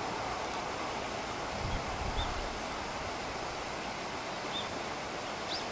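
Steady hissing background noise, with a brief low rumble about two seconds in and a few faint, short high chirps.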